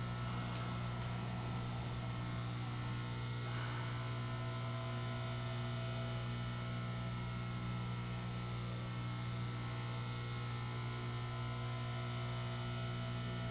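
Steady electrical hum with a line of even overtones, unchanging throughout, with a faint click just after the start.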